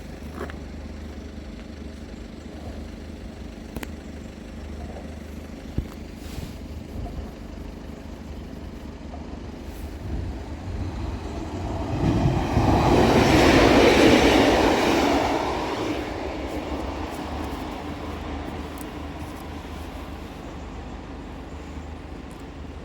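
A train passing over the level crossing: its noise builds, is loudest about thirteen to fifteen seconds in, then fades away.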